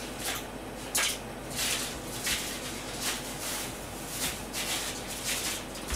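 A series of short rustling, crinkling handling noises, about a dozen in a few seconds and irregularly spaced, with a faint steady hum underneath.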